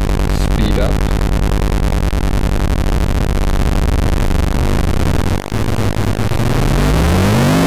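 Square-wave oscillators from a DIY CMOS oscillator bank mixed through an XOR logic gate, giving a dense, harsh, metallic buzz like digital noise. About six seconds in, one oscillator's pitch glides steadily upward as its knob is turned.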